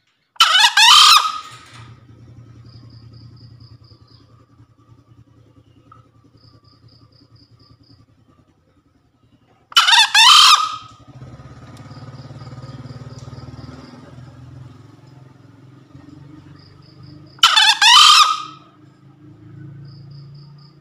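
A green junglefowl rooster crows three times, about eight to nine seconds apart, each crow a loud, hoarse call about a second long. Between the crows there are short trains of high insect chirps and a faint low hum.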